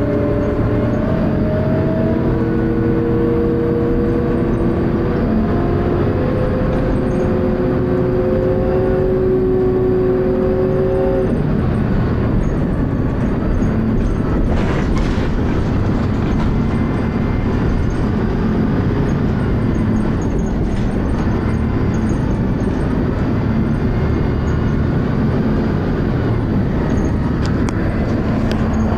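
Dennis Arrow bus running, with a whine that climbs slowly in pitch for about ten seconds and then cuts off. After that there is a steady engine and road rumble.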